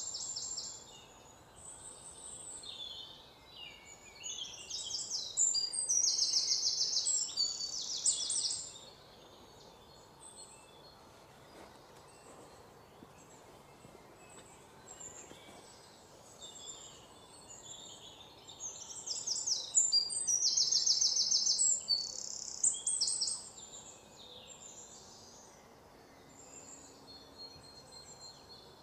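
Wild birds singing: fast, high trills and chirps, loudest in two spells of several seconds each, over a faint background hiss.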